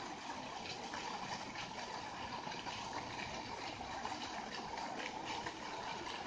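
A park fountain's single vertical water jet falling back into its round basin, giving a steady splashing hiss.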